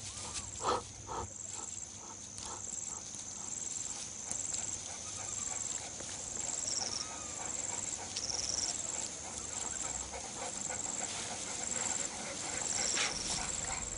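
Cheetah panting hard, about two quick rhythmic breaths a second, exhausted from the sprint and the kill. A high short chirp repeats steadily in the background.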